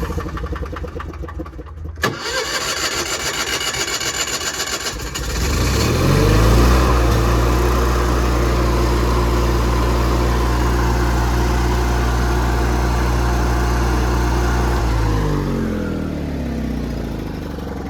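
Miller Bobcat 225 welder-generator's engine cranked over by its starter for a few seconds. It catches, rises to speed and runs steadily, then is shut off near the end and winds down.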